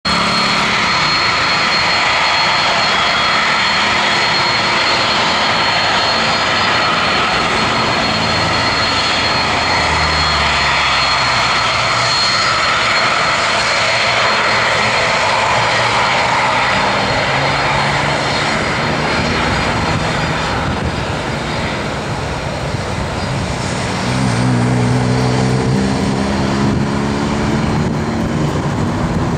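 Boeing 767-300 freighter's jet engines running loud and steady at close range, with a high steady whine over the noise. About three-quarters of the way through, low droning tones rise and fall and the sound grows louder as the jet begins to move off for takeoff.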